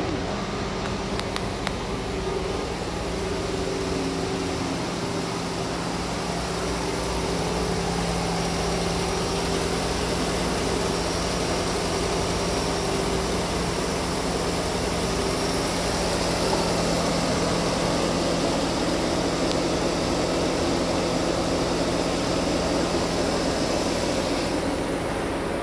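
2015 Dodge Dart's 2.4L MultiAir four-cylinder engine idling steadily.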